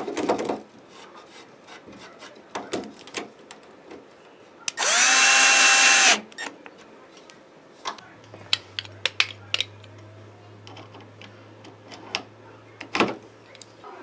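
Cordless drill spinning up and running for about a second and a half in one short burst. Around it come scattered clicks and knocks of metal door-lock hardware being handled, with a sharper knock near the end.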